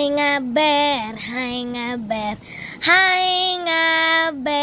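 A child's voice singing a simple tune in held notes that step up and down, with a short break about halfway through.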